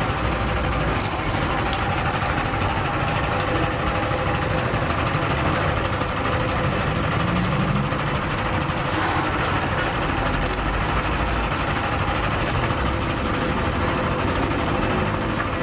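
Electric sugarcane juice press running steadily as sugarcane stalks are fed through its steel rollers.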